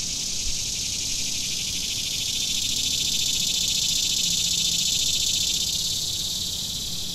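Insects in a summer woodland trilling in a dense, steady, high-pitched chorus that swells slightly and then eases off near the end.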